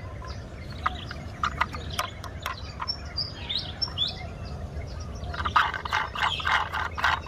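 Birds chirping in short calls, with scattered clicks and rustles from a toy truck being handled and turned over, thickest in the last couple of seconds.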